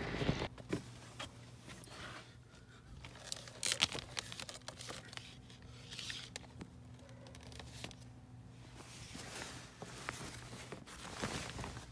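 Rustling, crinkling and light knocks as clothing and small items are handled close to the microphone, with a faint low hum underneath that stops about nine seconds in.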